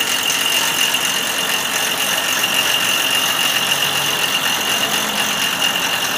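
A machine running steadily, a constant hiss with a high, unchanging whine over it.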